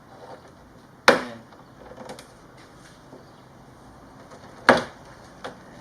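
Two sharp clicks about three and a half seconds apart, with a few faint ticks between them: the plastic retaining tabs of a 2017 Honda Civic hatchback's roof spoiler popping loose as a chisel pries it up.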